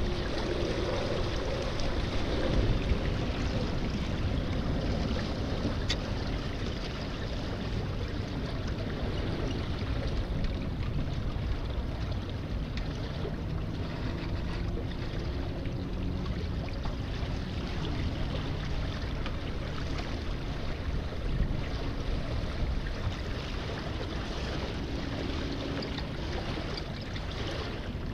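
Water rushing steadily along the hulls of a Marples Seaclipper trimaran as it sails downwind, with wind rumbling on the microphone.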